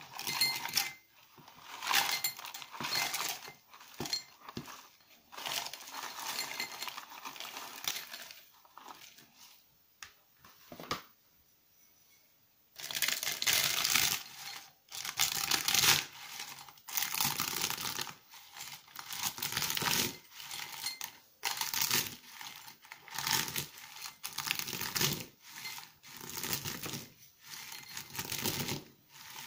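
Dry, brittle shards of dark NMZhK laundry soap crackling and clattering as they drop into a metal mortar. After a short pause, about halfway through, they crunch under a metal pestle in repeated strokes, roughly one a second.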